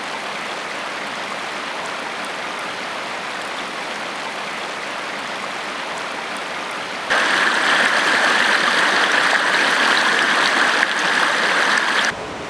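Stream water rushing and splashing, a steady noise that gets louder and brighter about seven seconds in and drops back near the end.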